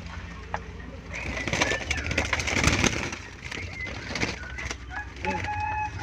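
Zebra doves (perkutut) cooing in a cage, with a louder stretch of rustling noise from about one to three seconds in and clear pitched call notes near the end.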